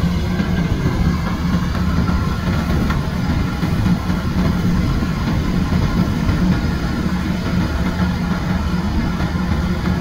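Kubota DC-105X combine harvester running steadily as it cuts rice: a constant low drone from its diesel engine and working machinery.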